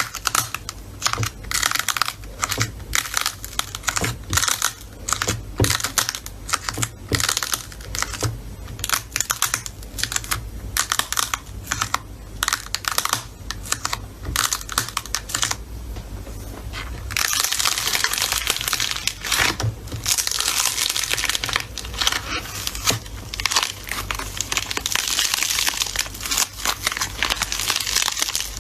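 Slime being squeezed and stretched by hand, giving rapid sticky pops and clicks; about halfway through it turns into a denser, continuous crackling.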